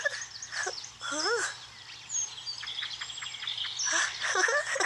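Birds chirping and tweeting, with a few short squeaky sounds that glide up and down in pitch, the loudest cluster near the end.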